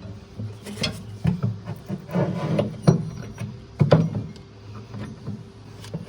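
Irregular metal clunks and scraping as parts are worked by hand on a skid steer during repair, over a steady low hum.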